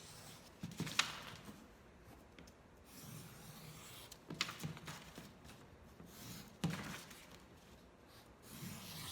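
Black marker drawing a line around the edges of construction paper: soft scratching in spells, with the paper being handled and three sharp taps.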